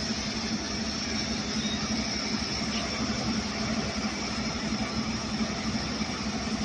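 Cobra-I fire robot's water cannon shooting a high column of water: a steady rushing hiss of the jet and spray, with a steady low hum under it.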